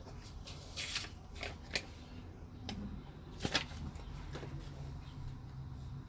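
Several short scratching strokes and light knocks from a ballpoint tactical pen being written with on paper and handled, the strongest about a second in and about three and a half seconds in.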